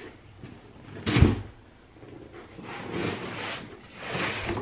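A large cardboard shipping box being opened by hand: a knock about a second in, then the cardboard flaps rustling and scraping as they are pulled back.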